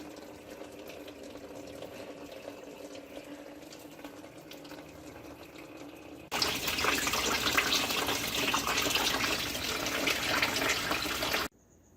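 Liquid coolant being poured, a quieter steady trickle at first, then a much louder splashing pour that starts abruptly about six seconds in and cuts off suddenly near the end.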